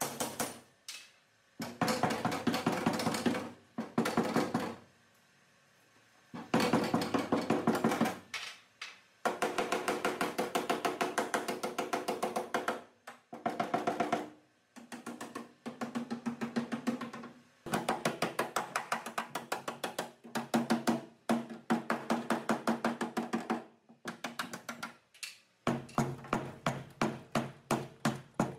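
Body hammer striking the crumpled sheet metal of a car's rear body in quick runs of several blows a second, with pauses between runs; the panel rings under the blows. The panel is being hammered back into shape while a chain pull holds it under tension.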